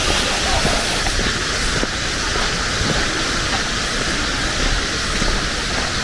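Steady, even outdoor hiss with a low rumble underneath.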